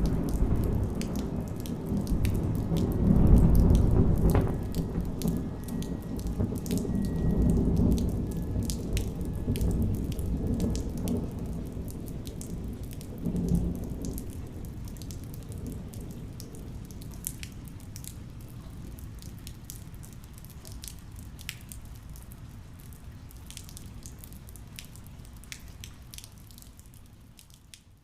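Thunder rumbling after a lightning strike, rolling in waves that peak about three seconds in with a short jolt around thirteen seconds, then dying away slowly under rain and scattered drips before fading out.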